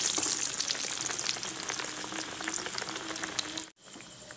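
Breadcrumb-coated bread patties deep-frying in hot oil, a dense, steady sizzle full of fine crackles. About three and a half seconds in it cuts off abruptly and a quieter sizzle follows.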